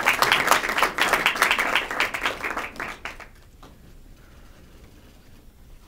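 A small audience applauding. The clapping dies away about three seconds in.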